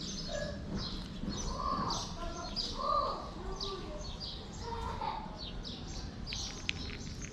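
Small birds chirping: many short, high chirps in quick succession throughout.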